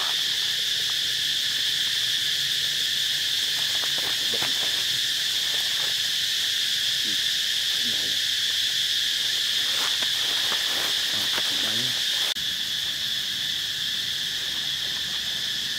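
Dense insect chorus droning steadily at one high pitch, with a few faint rustles partway through; the level steps down slightly about twelve seconds in.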